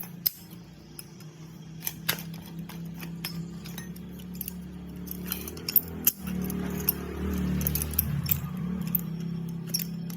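Angle grinder running with a steady hum and the rough growl the title calls 'ngorok' (snoring), with sharp metallic clinks and rattles throughout. It grows louder about six seconds in.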